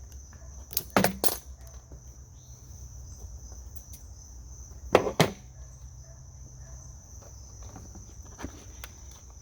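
Clicks and handling noises of the power and ground leads being undone from a battery: a few sharp clicks about a second in and a louder double click about five seconds in.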